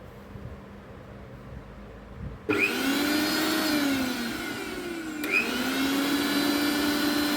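Bajaj GX8 750-watt mixer grinder motor switched on about two and a half seconds in, running with a loud, high whine. Its pitch sags a little, then jumps back up sharply about five seconds in, as if switched on again.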